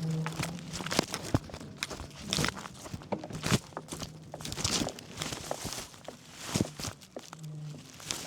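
Bicycle ridden over a rough village path: tyres crunching on grit and the bike rattling in irregular clicks and knocks.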